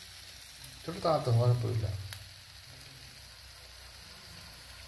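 Egg frying in a little oil inside a coconut-shell bowl over a gas flame, a soft steady sizzle. A brief voice about a second in is the loudest sound.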